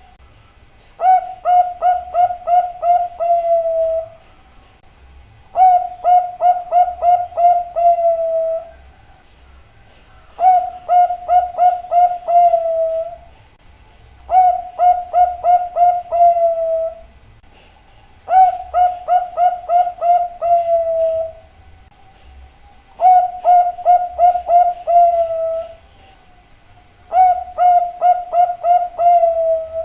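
Zebra dove (perkutut) cooing: seven phrases about four seconds apart, each a quick run of short staccato notes ending in a longer drawn-out note.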